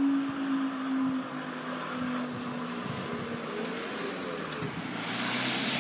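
Road vehicle passing over the level crossing: a steady engine tone sinks slowly in pitch and fades over the first three seconds, then tyre noise swells as another vehicle approaches near the end.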